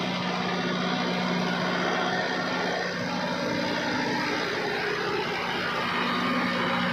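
Kubota MU5501 4WD tractor's diesel engine running steadily under load, with a constant low hum, as it drives a rotavator through deep, sticky wet mud.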